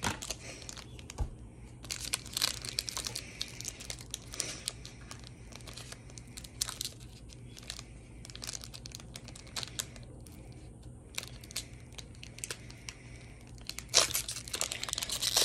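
A Pokémon TCG Brilliant Stars booster pack's foil wrapper being torn open and crinkled by hand: a scatter of sharp crackles, with a louder burst near the end.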